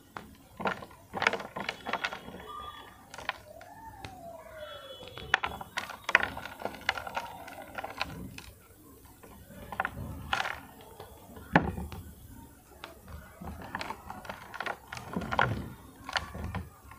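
Blocks of reformed gym chalk being crushed and crumbled by hand, giving irregular crunches and dry cracks as the chunks break apart and the crumbled pile is pressed.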